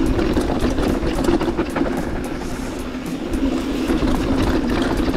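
Mountain bike riding fast down a rough trail: a steady rumble of tyres and wind, with quick rattles and knocks from the bike over the bumps.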